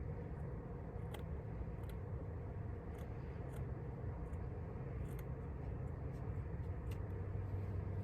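Scissors cutting fabric: about six separate snips at uneven spacing, over a steady low hum.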